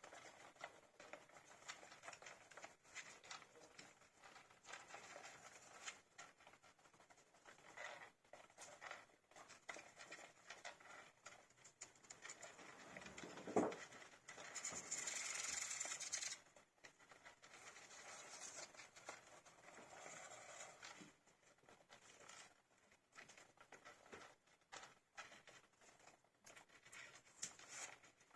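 Baby hamsters scrabbling and rustling faintly, many small scratchy clicks. About halfway through there is a single knock, followed by a couple of seconds of louder rustling.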